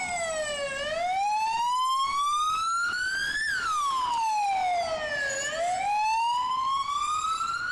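Ambulance siren sounding a wail: one tone sweeping slowly down and up in pitch, each sweep lasting two to three seconds.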